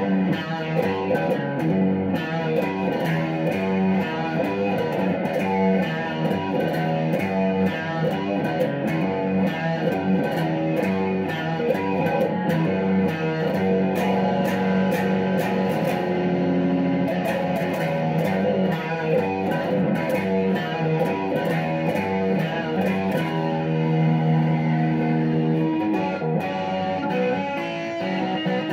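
SG-style solid-body electric guitar playing rock riffs one after another, quick picked note patterns broken by a few held notes.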